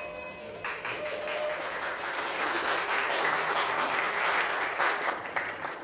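Guests clapping and applauding, the applause starting within the first second and growing louder.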